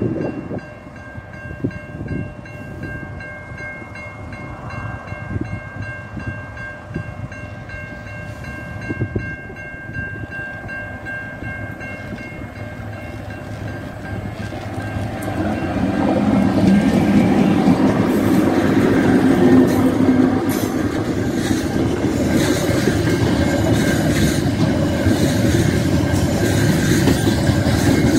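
A freight train approaches and then runs past close by, container wagons rumbling and clattering over the rails. The noise swells sharply about halfway through as the train reaches the crossing. In the first half, steady high ringing tones, typical of level-crossing alarm bells, sound over the train's approach.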